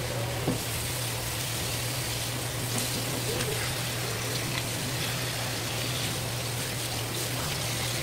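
Tap water running steadily from a faucet's spray head and splashing over a fish fillet in a plastic basin as gloved hands rub it clean, with a steady low hum underneath.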